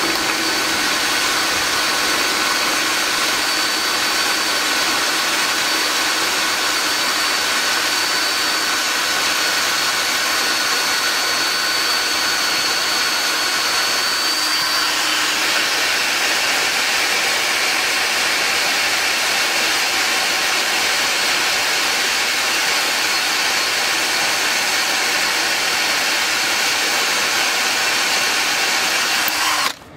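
Power drill running steadily under load, its bit boring into the rivet that holds the front lower ball joint to the suspension arm. Its note changes about halfway through, and it cuts off suddenly just before the end.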